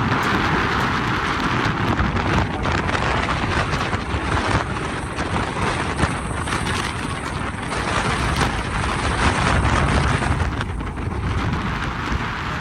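Wind buffeting the microphone on a moving cruise boat, a steady rush with gusty bursts over the low rumble of the boat underway.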